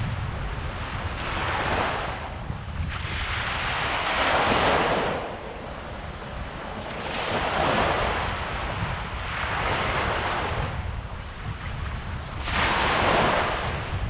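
Small waves breaking and washing up a sandy beach, five swells of surf noise about every two to three seconds, the loudest about four and a half seconds in and near the end. Wind buffets the microphone with a steady low rumble underneath.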